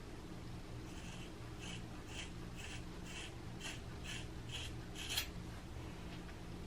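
Scissors snipping through hair, about nine quick cuts at roughly two a second, the last one the sharpest, over a low steady hum.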